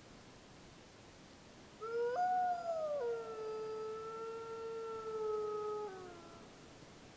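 Gray wolf pup howling: one long howl that jumps up in pitch near its start, holds steady, then falls away at the end.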